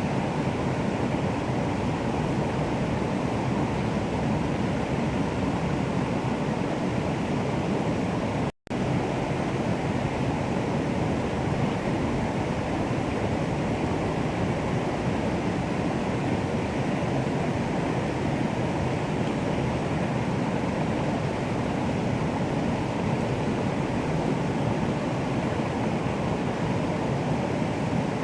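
Steady, continuous rush of water, even and unchanging, broken once by a split-second dropout to silence about a third of the way through.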